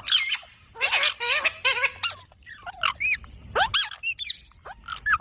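Baby parrots calling: a quick series of short, high-pitched squawks and chirps that slide up and down in pitch, one after another with brief gaps.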